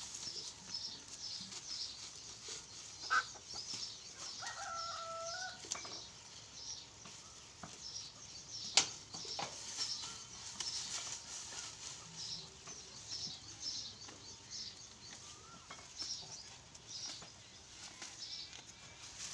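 Goats and kids tugging and chewing at a bundle of dry and green fodder, with light rustling under steady high chirping of small birds. A short animal call about four and a half seconds in, and a single sharp knock near nine seconds.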